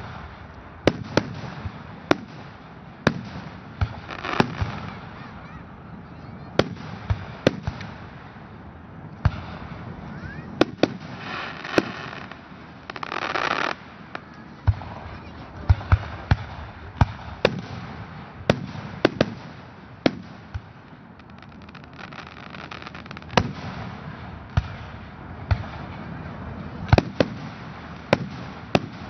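Aerial fireworks shells bursting as a run of sharp bangs, one or two a second, over a steady background hiss. About halfway through, a louder rush of noise lasts about two seconds and cuts off suddenly.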